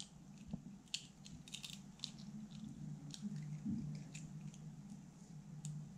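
Faint small crackles and clicks of a cracked eggshell being pried apart by hand, its halves scraping as the yolk is passed between them, over a low steady hum.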